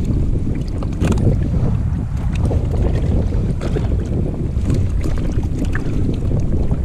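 Wind buffeting the microphone as a steady low rumble, with water slapping against a kayak hull in a few short splashes.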